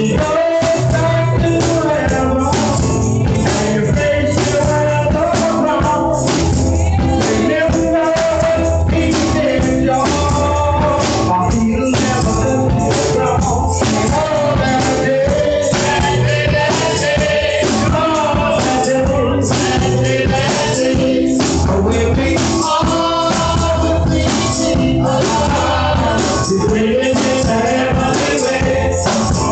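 Live gospel praise-and-worship song: sung vocals over electric keyboard and drums, with a steady beat.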